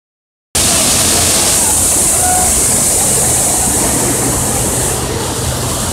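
Waterfall pouring down a stone wall into a pool: a loud, steady rushing hiss that starts suddenly about half a second in.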